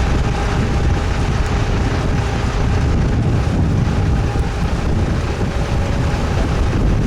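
A boat motor runs steadily with a low rumble and a faint steady hum, and wind buffets the microphone.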